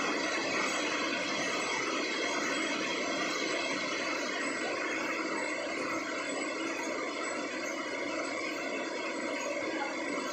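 High-speed paper slitter-rewinder running steadily, slitting a wide paper web into narrow strips and winding them onto rolls: an even mechanical drone overlaid with several steady whining tones.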